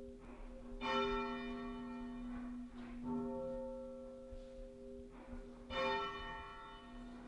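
Half-muffled tenor church bell tolling a mourning toll: three slow strokes about two and a half seconds apart, each ringing on and dying away. The strokes alternate bright and dull, open and muffled.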